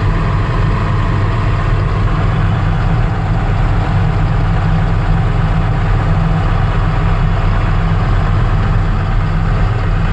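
Heavy diesel power of a Cat 966D wheel loader driving a SnoGo MP3D snowblower, running steadily under load as it cuts through deep drifted snow, heard from inside the loader's cab.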